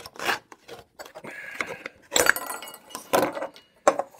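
Pocket knife blade working through a thin aluminum beer bottle in irregular scraping strokes, with metallic clinks and the crinkle of the thin metal, and a brief squeal about a second in.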